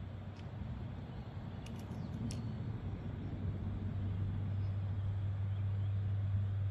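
Sharp metallic clicks of a .177 pellet striking a hanging steel target plate about two seconds in, the last one ringing briefly. A steady low rumble runs underneath and slowly grows louder.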